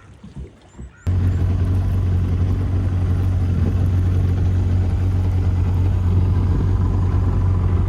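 Boat engine running steadily at a constant pitch, loud and close, cutting in suddenly about a second in.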